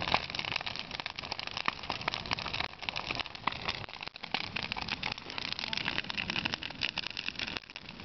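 Large wood bonfire burning, with dense, rapid crackling and popping over a steady rush of flame.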